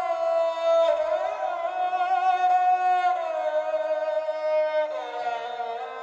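A phrase from Sonuscore's Ethnic String Phrases sample library: a bowed string in an ethnic style holding long notes, sliding and bending into each new pitch, with note changes about a second in, about three seconds in and near the end.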